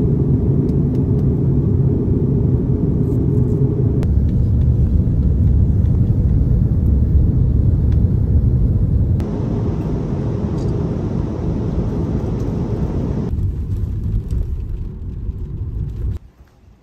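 Steady low rumble of jet airliner cabin noise heard at a window seat, in several short clips cut together. Near the end it gives way to the duller rumble of a car's interior on the road, which cuts off suddenly about half a second before the end.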